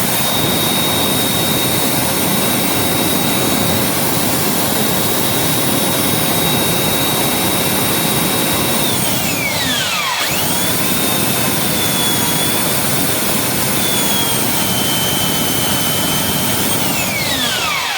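Bosch PBS 75 A belt sander running with a high whine over loud motor and belt noise. It is switched off about halfway through and winds down, then is started again and spins back up. Near the end it is switched off and winds down again. After the pulley bearing repair the belt runs without jumping.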